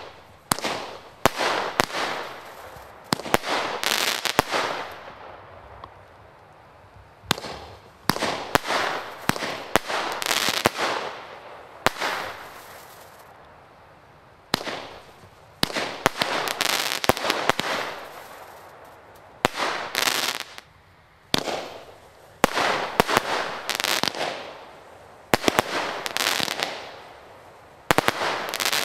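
Consumer fireworks going off in quick salvos: sharp bangs and bursts that come in clusters, each cluster trailing off over a second or two, with short lulls between salvos.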